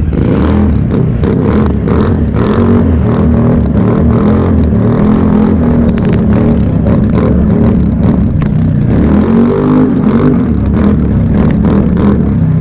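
ATV engine running hard at full throttle down a grass drag lane, heard from on board. Its pitch swings upward about ten seconds in, with wind rushing over the microphone.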